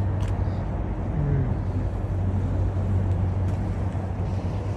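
A vehicle engine running steadily at idle: an even low hum with outdoor noise over it.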